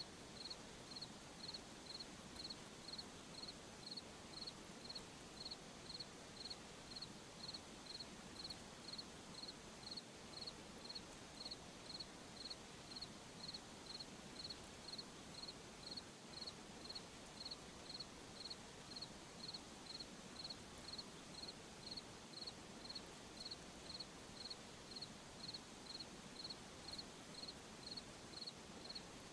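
A cricket chirping at a steady rhythm, close to two high-pitched chirps a second, over a soft steady hiss of night ambience.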